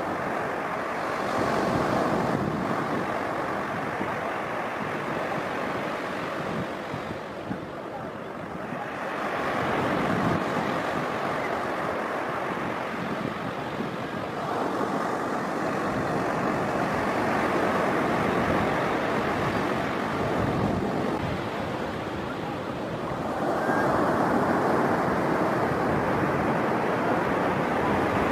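Surf washing on the beach and wind on the microphone, swelling and easing a few times, with a toy RC monster truck's small electric motor whirring as it drives over the wet sand.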